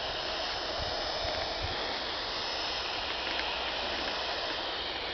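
Portable FM radio receiver hissing with static while tuned between stations, a steady noise with faint wavering tones in it.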